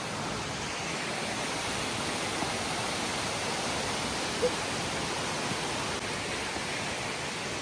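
Waterfall pouring, a steady rushing roar of falling water, with one brief short sound about four and a half seconds in.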